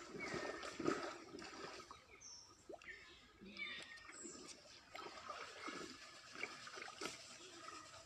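Water splashing and trickling as a wet kitten is washed by hand in pond water, with irregular small splashes and a few brief high chirps.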